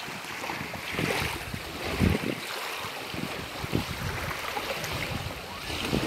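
Small waves washing on a sandy shore, swelling now and then, with wind buffeting the microphone in low irregular thumps.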